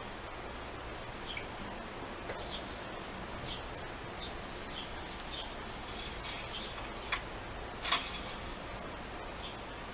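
Short high chirps of a bird call, repeated irregularly about once or twice a second over a steady background hiss, with two sharp clicks near the end.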